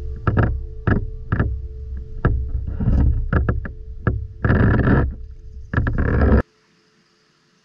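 Water splashing and sloshing in a shallow stream as hands work in it, with a string of sharp knocks, cutting off abruptly about six and a half seconds in.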